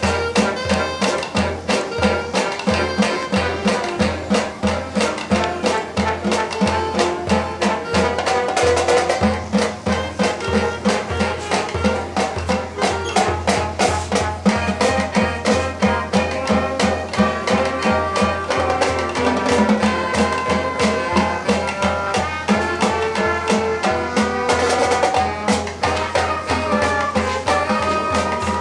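High school marching band playing its field show: brass carrying the melody over a steady drum-line beat.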